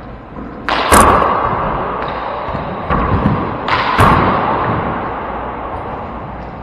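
Handball rally in an enclosed four-wall court: a run of sharp smacks of the rubber ball off gloved hands and the walls, the loudest about a second in and again about four seconds in. Each smack trails off in a long echoing ring from the court.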